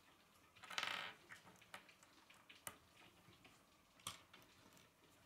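Plastic K'nex rods and connectors being handled and fitted together on a wooden table: a short rattle about a second in, then a few sharp separate clicks as the pieces snap together.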